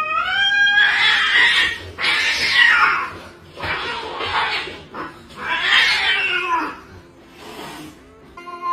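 Angry cat: a rising yowl at the start, then about four harsh, noisy hisses, and another rising yowl near the end.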